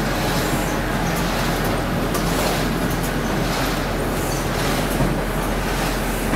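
Iberica DG 60 die-cutting machine running, a steady mechanical clatter with a rhythm that repeats over and over.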